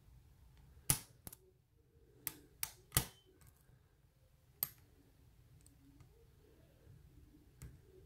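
Faint, sharp metallic clicks from a hook pick working the pins of an ERA Euro cylinder lock under tension, about seven spaced irregularly, the loudest about a second in and about three seconds in. The clicks are typical of pin tumblers setting at the shear line during single-pin picking.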